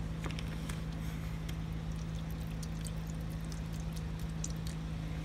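Krud Kutter rust-removing cleaner being poured from its bottle into a container, a steady pour with light scattered ticks, over a constant low hum.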